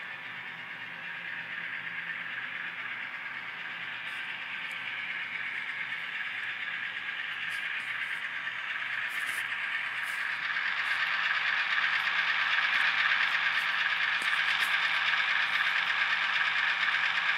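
Model freight train rolling along the track, the cars rattling with light clicks, under a steady whine from the Atlas RS-3 locomotive's ESU LokSound decoder that grows louder as the engine draws near. The uploader says the noise is the decoder's back-EMF motor control, not the motor itself.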